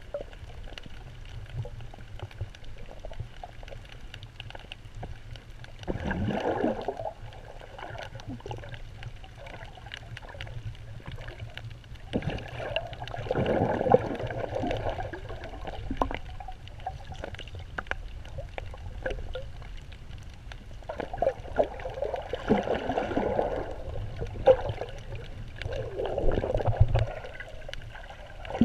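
Muffled sea water heard through an underwater camera: a steady low rumble, with four louder swells of gurgling spaced several seconds apart.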